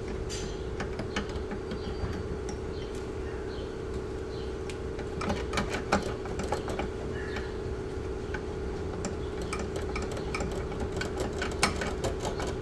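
Hand tools clicking and tapping on metal fittings around the brake master cylinder as a line is worked loose, in irregular bunches over a steady hum.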